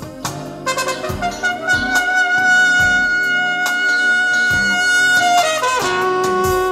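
Jazz recording played over Dynaudio Contour 20i bookshelf speakers driven by an Aavik I-180 integrated amplifier. A lead horn holds one long high note for several seconds, then slides down to a lower note near the end, over low bass notes.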